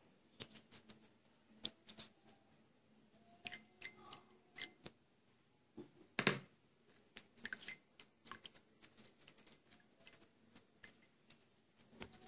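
Faint, scattered clicks and taps of a metal spoon on a plastic tea strainer and tray as onion puree is stirred through the strainer, with one louder knock about six seconds in.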